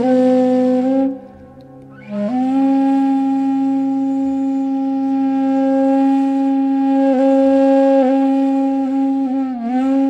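Background music: a breathy flute holds long notes, a short one at the start, then after a brief pause a long one from about two seconds in that wavers slightly near the end, over a low steady drone.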